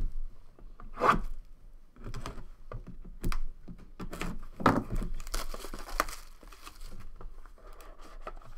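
Packaging of a sealed trading-card box being torn open, with irregular rips, crinkling wrapper and small sharp clicks of handling.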